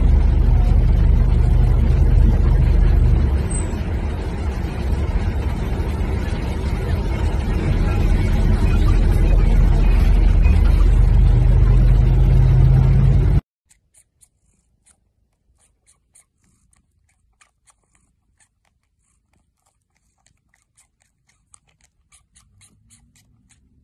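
Steady low rumble of engine and road noise inside a moving vehicle's cabin, easing slightly for a few seconds and then building again. It cuts off suddenly about 13 seconds in, leaving near silence with faint scattered soft clicks.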